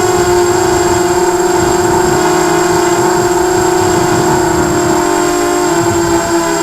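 Quadcopter's electric motors and propellers whining steadily, the pitch wavering slightly with throttle and dipping a little near the end.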